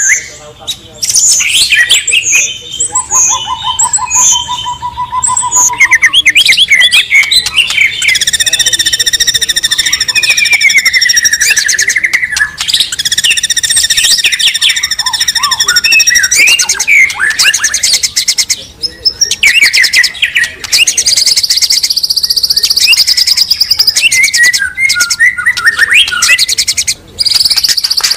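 A Bornean shama (murai batu borneo) singing prolifically in a loud, unbroken, varied song of clear whistles, quick trills and runs of rapidly repeated notes. About a third of the way in it holds one long high note.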